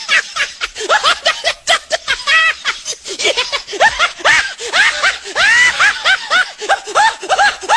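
A rapid series of short, high-pitched voice sounds, each rising and falling in pitch, several a second.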